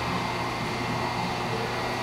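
Steady low mechanical hum with an even hiss, the constant background noise of the shop, with no distinct knocks or clicks.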